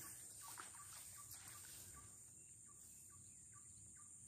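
Faint swamp ambience: a steady high insect drone, with short faint chirps repeating a few times a second.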